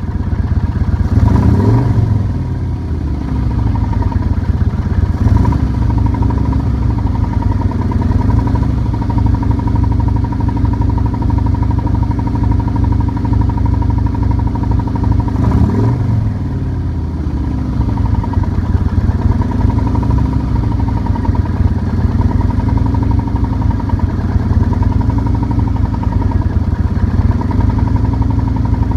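A 2008 Kawasaki Vulcan Nomad's V-twin engine running at idle, blipped up and back down a few times (about a second in, near five seconds and near sixteen seconds). Through it runs the engine knock that the owner is recording.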